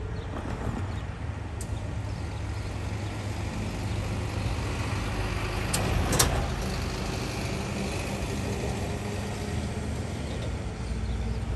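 Road vehicles passing close by: a car, then a diesel truck going past about halfway through with a brief sharp burst of noise, the loudest moment. Under them runs a steady low rumble of traffic and the approaching diesel freight train.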